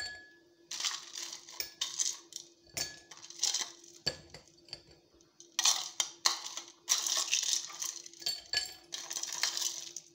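Ice cubes scooped with a spoon and dropped into stemmed glasses, clinking and clattering in a string of irregular bursts.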